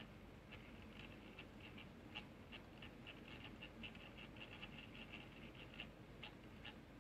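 Small rotating display turntable ticking faintly as it turns, several light clicks a second, coming quicker from about three seconds in.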